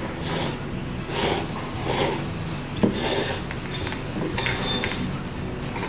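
Ramen noodles being slurped from a bowl, four short loud slurps in the first three seconds, followed by softer mouth sounds.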